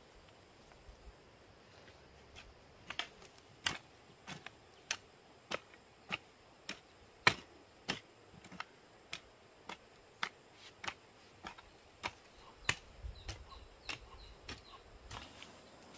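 A series of sharp knocks, roughly one to two a second and unevenly spaced, beginning a couple of seconds in and going on until near the end.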